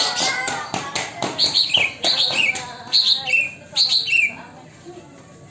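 Green leafbird (cucak ijo) singing a bulbul-like song in imitation of the sooty-headed bulbul (kutilang). It gives short loud phrases, each a high note dropping sharply, repeated about four times, then falls quiet near the end.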